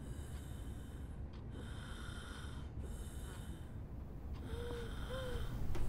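Slow, heavy breathing of a woman lying ill in bed, one breath about every second and a half.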